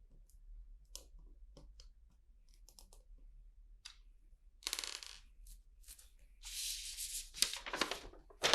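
Light clicks of plastic LEGO pieces being handled. About halfway in comes a short rustle, then a longer stretch of rustling and crinkling near the end.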